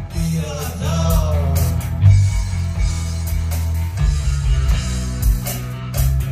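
A live rock band playing electric guitars, bass guitar and drum kit, with a man singing for the first two seconds before the instruments carry on alone.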